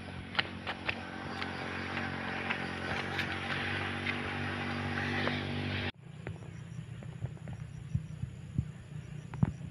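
Footsteps in sneakers on a paved road, about two a second, over a steady engine hum that grows slightly louder, ending abruptly about six seconds in. After that, quieter scattered taps and faint repeating insect chirps.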